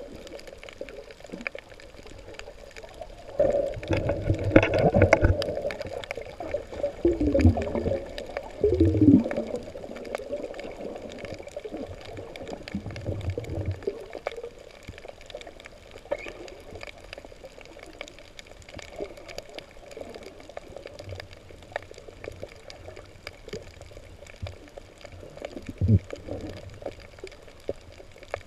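Underwater recording: muffled water sloshing and gurgling around the camera housing, louder in several bursts a few seconds in and again in the middle, with a brief louder gurgle near the end.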